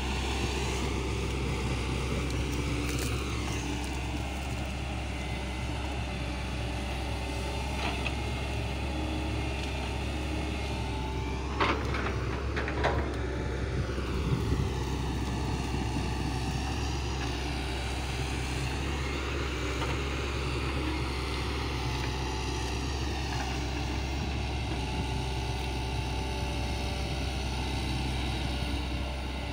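Hitachi hydraulic excavator's diesel engine running steadily as it works, with a few sharp knocks clustered around the middle.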